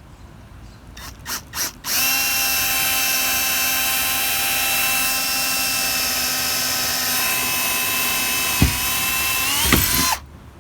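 Electric drill drilling a mounting hole through the truck cap: three short trigger bursts, then a steady motor whine for about eight seconds, with two sharp knocks near the end and the pitch rising slightly just before it stops.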